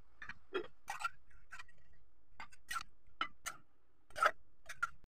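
Light clinks and taps of a glass bowl and a utensil knocking on a plate, about a dozen sharp, irregular clicks, the loudest a little past four seconds in.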